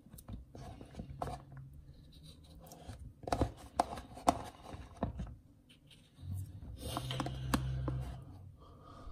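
Kitchen knife knocking and scraping on a cutting board as black olives are cut in half, in sharp taps that cluster a few seconds in and again near the end.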